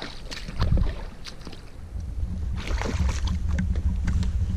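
Wind buffeting the microphone with a steady low rumble, over scattered knocks, clicks and scrapes as a person climbs out of a canoe onto a stony shore, a louder cluster of them about half a second in and again near three seconds.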